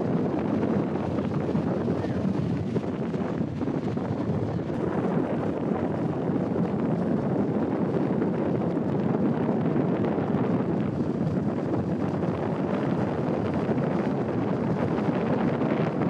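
Steady wind rushing over the microphone at the bow of a moving river water taxi, blended with the boat's running noise.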